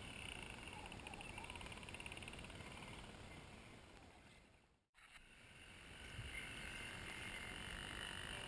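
Faint, steady high trilling from a chorus of calling animals. It fades away a little over halfway through, drops to a moment of silence, then comes back.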